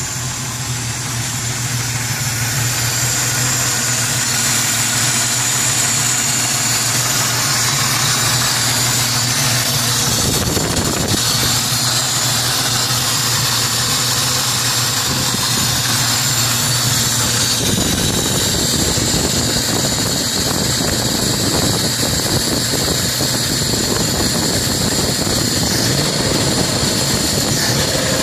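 Carbureted 4.0 engine idling, with a steady hiss over the engine note that the owner takes for a vacuum leak around the carburetor. The engine note changes about ten seconds in and again near eighteen seconds, turning less even.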